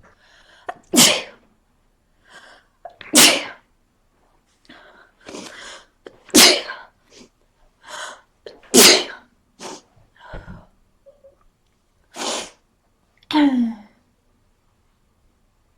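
A person with a cold sneezing over and over: six loud sneezes in a row, a few seconds apart, with softer breathy sounds between them.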